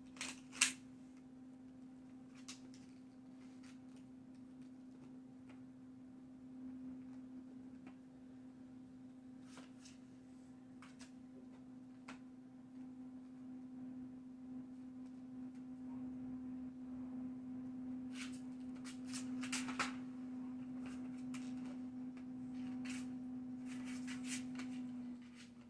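Dog gnawing a knotted rawhide bone: scattered sharp clicks and crunches of teeth on the hide, coming in clusters, with a steady low electrical hum underneath.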